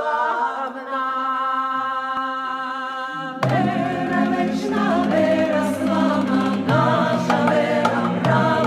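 Choral song in Serbian Orthodox style: for about three seconds a single unaccompanied voice holds long notes. Then a fuller choir with a deep low part comes in and sings on.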